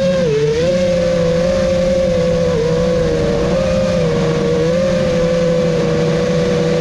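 A 5-inch FPV freestyle quadcopter's Emax Eco II 2306 brushless motors and tri-blade props whining at a steady pitch. The pitch dips briefly with throttle changes just after the start and again about two and a half seconds in.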